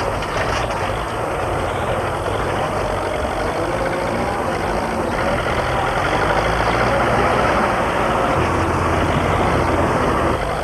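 Farm tractor engine running steadily while the tractor works a dry, dusty field, a bit louder in the second half.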